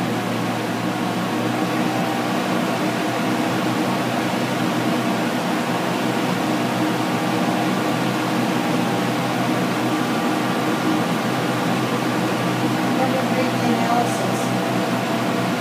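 Blower door fan running at a steady speed, an even rush of air with a constant hum of several tones, as it depressurizes the house to measure air leakage.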